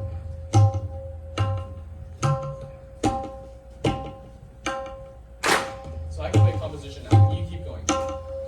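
Tabla played in a slow, even rhythm, about one stroke every 0.8 seconds. The right-hand drum (dayan) gives a ringing pitched tone, and on many strokes the left-hand drum (bayan) adds a deep bass stroke.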